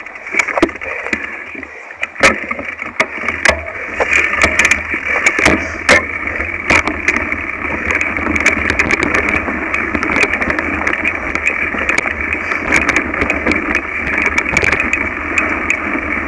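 Mountain bike rattling and knocking over a rough dirt trail, picked up by a handlebar-mounted camera: a steady rolling noise with many sharp knocks, most frequent in the first half.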